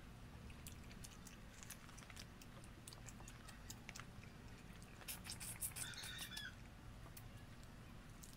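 Close-up eating sounds: many short wet clicks and smacks of chewing, with the crackle of boiled shrimp being peeled by hand. A brief high squeak comes about six seconds in.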